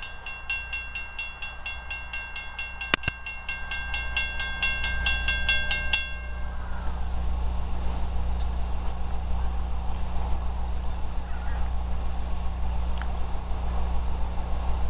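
Railroad grade-crossing warning bell ringing rapidly, cutting off about six seconds in. Under it, the low steady rumble of an approaching NJ Transit diesel push-pull train grows and holds.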